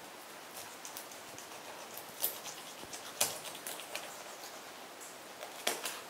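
Faint wet clicks and crackles of fingers pulling the gills and innards from a raw torpedo scad on a plastic cutting board, with sharper clicks about two, three and five and a half seconds in.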